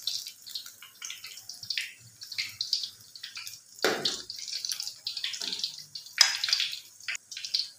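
Hot oil sizzling and crackling around breaded chicken balls deep-frying in a pan, with a metal ladle knocking against the pan and plate as the balls are lifted out. The two loudest knocks come about four and about six seconds in.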